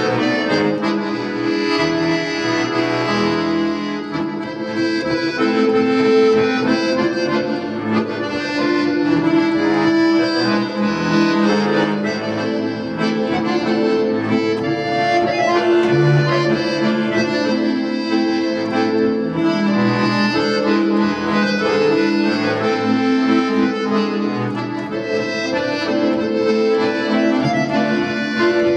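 Jupiter bayan, a Russian chromatic button accordion, playing a melody over chords and bass, steadily and without pause.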